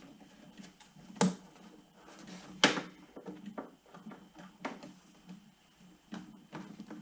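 Irregular clicks and knocks of hard parts being worked by hand, with four sharper knocks about one and a half seconds apart and small ticks between them. The sharpest knock comes about two and a half seconds in.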